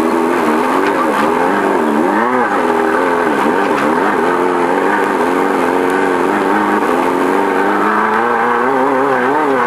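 VW Beetle-based desert race car's engine, heard from inside the car, with the revs rising and falling every second or so, then steadier and slowly climbing near the end.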